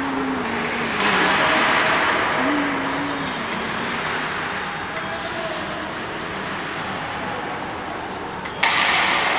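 Indoor ice rink during skating practice: hockey skates scraping and carving on the ice as a steady hiss, with faint players' voices calling in the echoing rink. A louder scraping hiss starts suddenly near the end.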